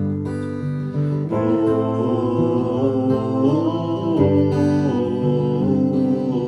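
Live song performance: piano accompaniment with a singing voice holding a bending, wordless line in the middle.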